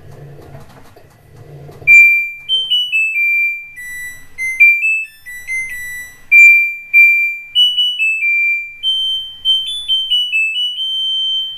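Front-loading washing machine playing its end-of-cycle tune, starting about two seconds in: a melody of clean electronic beeps signalling that the wash has finished.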